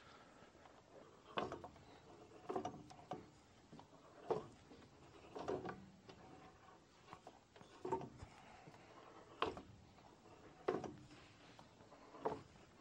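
Rotax aircraft engine being turned over slowly by hand at the propeller to burp its dry-sump oil tank, pushing oil from the crankcase into the reservoir. It makes a short sound every second or so, about ten in all.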